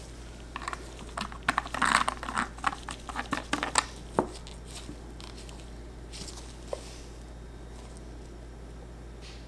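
A flurry of crinkling and light clicking handling noise for about three seconds, then only a faint steady hum.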